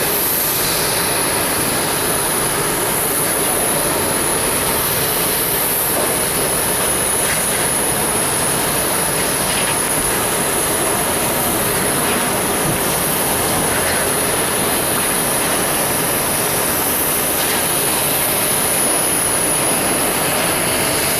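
Boeing 737 MAX 8's CFM LEAP-1B turbofan engines running steadily, an even rushing noise with a constant high-pitched whine.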